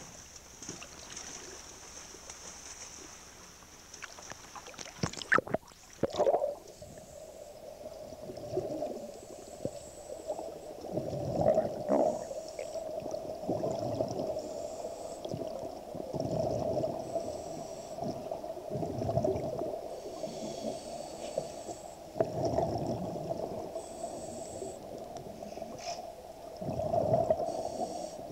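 Underwater sound of a scuba diver breathing through a regulator: bursts of exhaled bubbles gurgle every two to three seconds over a steady hum. The first six seconds are at the surface, with a hiss and a few sharp knocks before the camera goes under.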